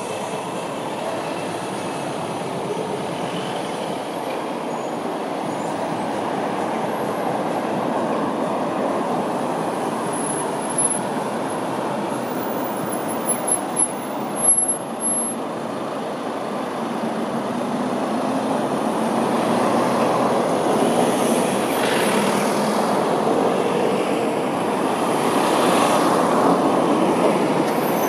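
Steady road traffic noise: a low rumble of engines and tyres from queued cars and a bus, building louder in the second half as vehicles move past, with a few short knocks about halfway through.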